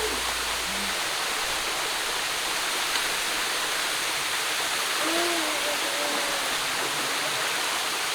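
Manoa Falls, a tall waterfall, pouring steadily into its pool with a constant rush of water. Faint voices are heard through it about five seconds in.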